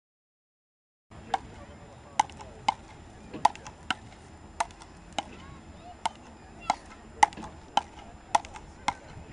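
Frescobol rally: a rubber ball knocked back and forth between two wooden paddles, a sharp crack at each hit, about one to two a second. The sound starts about a second in, out of silence.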